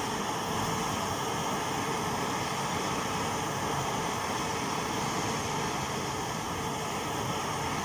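Two petrol pressure burners of a Swiss military field stove burning with a steady rushing noise, both with blue flames from freshly cleaned jets.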